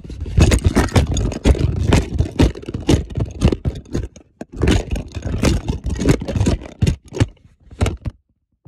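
Phone being jostled and rubbed as it is moved: dense scraping and rattling with sharp knocks, stopping near the end.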